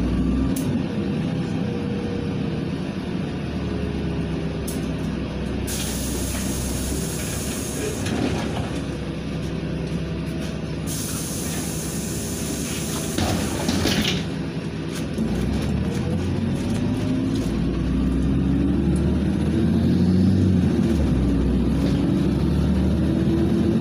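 LiAZ 5292.67 city bus under way, heard from inside the cabin: steady engine and road noise, the engine pitch rising and falling. Twice a loud hiss of air lasts two or three seconds, typical of the bus's pneumatic system letting off air.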